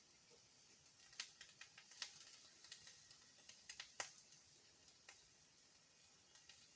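Faint sizzling of pizza dough frying in a pan, with a few light, sharp clicks and taps scattered through it.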